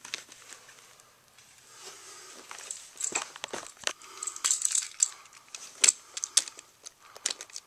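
Handling noise: an irregular run of sharp clicks and clatters from small hard objects being moved about, sparse at first and thickest from about three seconds in.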